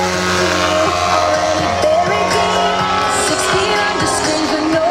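Loud display music with a singing voice, played over a public address.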